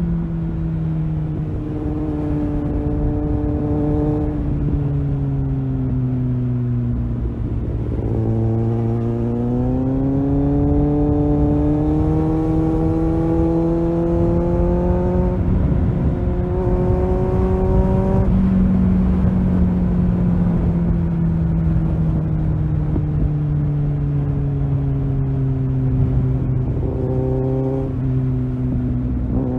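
Kawasaki Z800's inline-four engine heard from the rider's seat on a calm ride. The engine note falls as the rider rolls off for the first several seconds, then climbs under throttle with short breaks between gears, eases down again through the middle, and picks up once more near the end.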